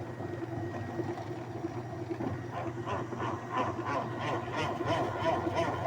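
Washing machine running: a steady motor hum with a rhythmic swishing, about three beats a second, that grows louder from about halfway through.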